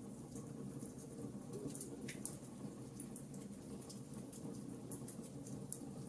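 Wood fire crackling in a fireplace: irregular small sharp pops and ticks over a low, steady rumble of the burning logs, with a louder pop about two seconds in and another near the end.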